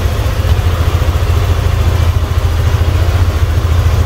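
Yamaha Aerox 155 scooter's single-cylinder engine in a superstock (raised-compression) build, idling with a steady low throb. The builder judges the idle good, showing that the higher compression has not made it rough.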